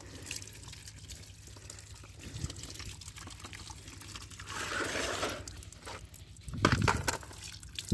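Water trickling and pouring, with a stronger rush a little past the middle and a loud knock near the end.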